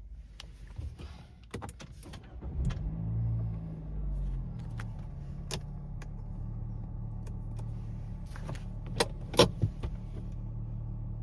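Nissan MR20DD 2.0-litre four-cylinder engine starting normally, catching quickly about two and a half seconds in after a few clicks, briefly flaring and then settling to a steady idle. A few sharp clicks come near the end.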